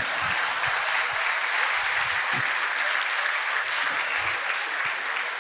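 Large seated audience applauding steadily, many hands clapping at once.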